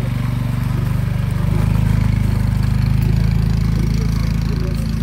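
Small step-through motorcycle engine pulling away with two riders aboard, revving up about a second and a half in and then running steadily as it moves off.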